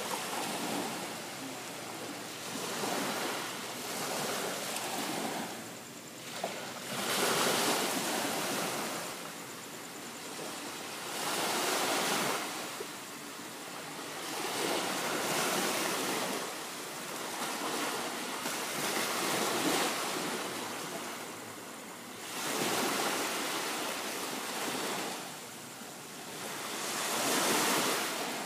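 Sea waves breaking and washing on the shore, a swelling surge of wash about every four seconds.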